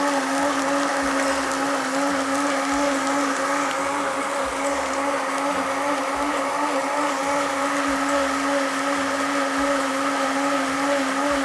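Countertop blender running steadily, its jug full of a liquid mix of melon, green tea and lemon with ice: a constant motor hum that holds one pitch without changing.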